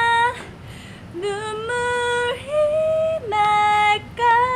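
A woman singing a slow ballad unaccompanied, in long held notes. One note ends just after the start. After a short breath she slides up into a phrase of sustained notes that step up and then down, and begins another long note near the end.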